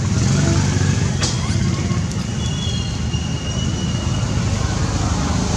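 Steady low rumble of wind buffeting the microphone, with a single click about a second in and a faint, thin, high-pitched call a little past two seconds.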